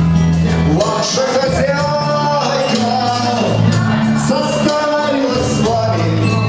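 Music: a slow melody of long held notes that glide between pitches, over a backing track with a steady bass line.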